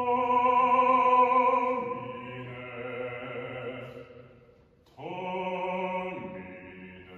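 A bass voice sings an aria with baroque violins and viola da gamba, holding long notes with a slight vibrato. The phrase dies away about four and a half seconds in, and a new phrase starts sharply about half a second later.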